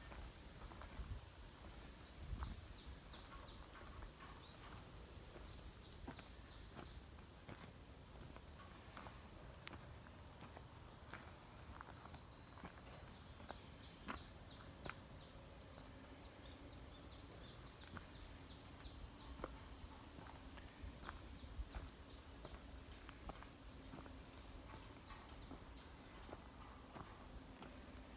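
A steady, high-pitched chorus of insects chirring, growing slightly louder toward the end, with the soft irregular steps of someone walking a forest trail underneath.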